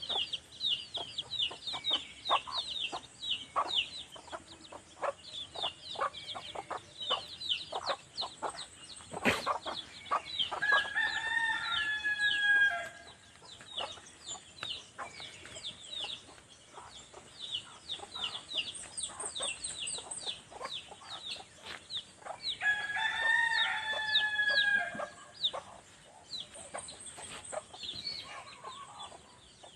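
Chicks peeping rapidly and without pause, while a rooster crows twice, about twelve seconds apart, each crow lasting about two seconds. There is one sharp click a little before the first crow.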